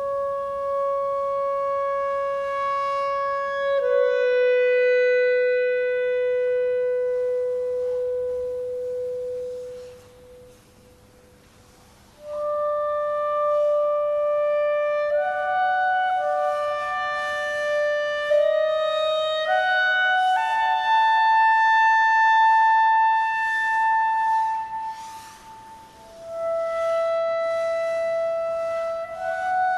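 Solo clarinet playing slow, long-held notes. Two sustained notes are followed by a pause of about two seconds, then a phrase of held notes that steps gradually upward.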